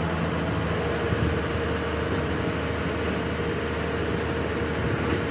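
A machine running steadily: a low mechanical hum with a steady whine that sets in about a second in.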